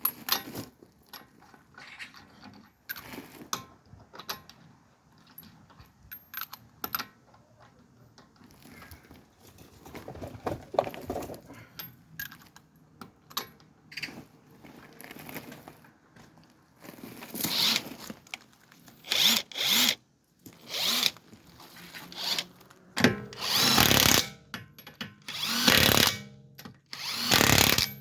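Handheld power tool, such as a drill or driver, run in a series of short bursts during the second half, with light clinks of tools and parts before it.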